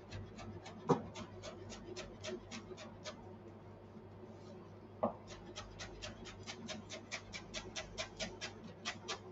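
Knife chopping parsley on a cutting board: quick, even strokes about five a second, stopping for about two seconds midway, then starting again. There are two heavier knocks, about a second in and just before the chopping resumes.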